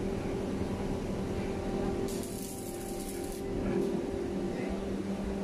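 A steady low mechanical hum, with a short burst of hiss about two seconds in.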